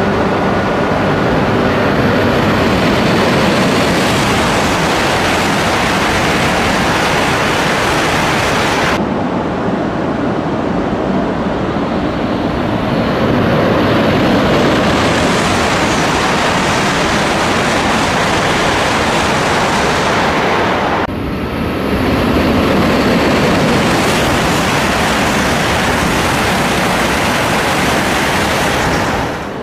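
Shinkansen bullet trains passing through a station at speed: a loud, steady rush of air and wheels on rail. The sound changes abruptly to a new pass about nine and about twenty-one seconds in.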